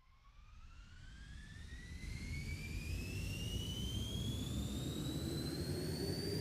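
Jet engines of an Airbus cargo aircraft spooling up: a rising turbine whine climbs steadily in pitch over a deep rumble, growing louder throughout.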